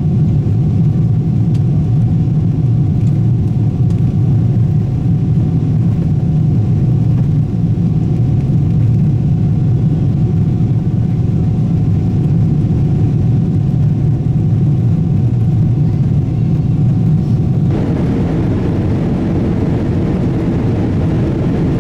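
Steady, loud, low rumble of engine and airflow noise inside a Boeing 777-300ER's economy cabin, with a faint steady hum above it. The sound changes abruptly near the end, becoming brighter and more hissing.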